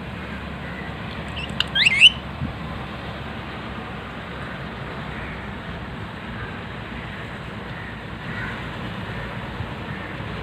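Rose-ringed (Indian ringneck) parakeet giving a quick run of sharp rising squawks about two seconds in, over a steady background hiss.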